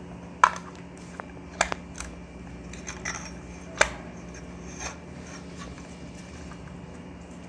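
Sharp metallic clicks and knocks from ceiling fan parts being handled and fitted back together, the loudest about half a second in and near four seconds in, over a steady low hum.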